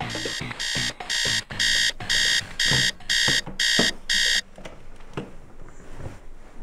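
Electronic alarm clock beeping: about eight short, high beeps, roughly two a second, that stop suddenly a little over four seconds in.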